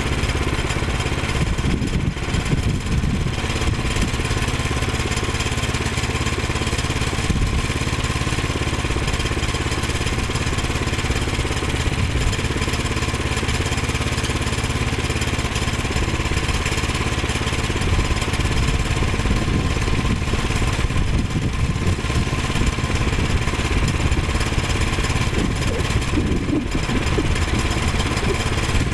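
Small gasoline engine of a Woodland Mills HM122 portable sawmill running steadily.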